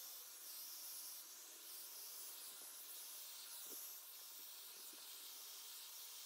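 Dyson Airwrap hair styler blowing air, heard as a faint, steady hiss with a few small ticks.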